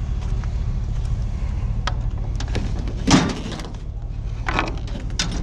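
A vehicle engine running with a steady low rumble, broken by a few knocks and clatters and one louder thump about three seconds in.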